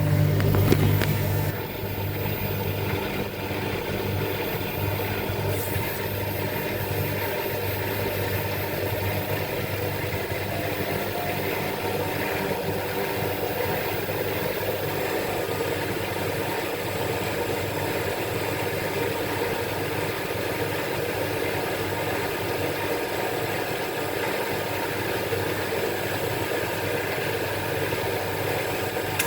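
Vestel washing machine running: a steady motor-and-drum hum, louder and deeper for the first two seconds, then an even whir.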